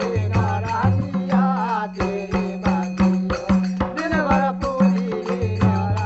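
Tribal folk music of the Tharu-Buksa: voices singing over regular drum strokes and a sustained low drone.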